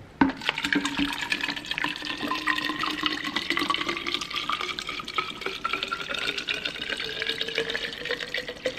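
Water pouring from a gallon plastic jug into a plastic water bottle, following a click at the start. The pour runs steadily, its pitch rising as the bottle fills.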